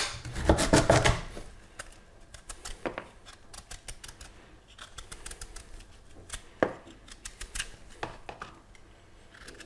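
Kitchen knife cutting celeriac on a chopping board: irregular crisp clicks and knocks of the blade, with a few louder strikes.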